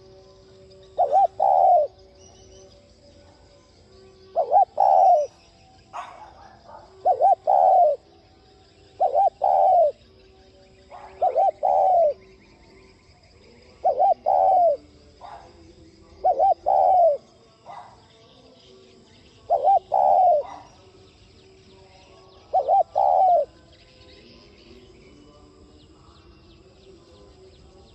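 Spotted dove cooing in the quick 'thúc' style: nine short two- and three-note coo phrases, repeated every two to three seconds and stopping a few seconds before the end.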